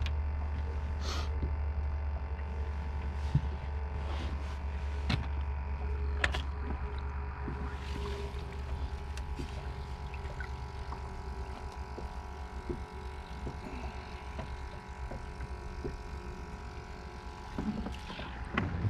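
Steady low hum of a small fishing boat's motor, with a faint whine of steady tones above it. A few light knocks and clicks of gear on the boat come in the first several seconds.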